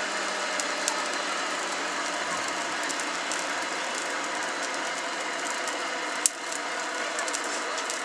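Coke forge fire burning under an air blast while a knife blank heats in it: a steady rushing noise with faint crackles, and one sharp click about six seconds in.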